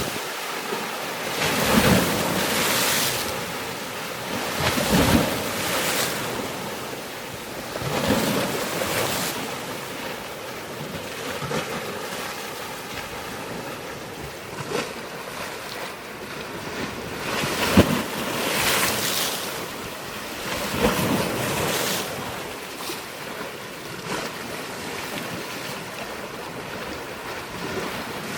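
Waves surging in every few seconds, with wind buffeting the microphone and one sharp knock partway through.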